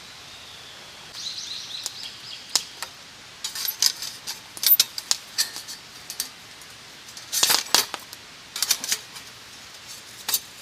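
Metal pieces clinking and rattling against each other in short clusters of sharp clicks, the busiest stretches in the middle and about three quarters of the way through.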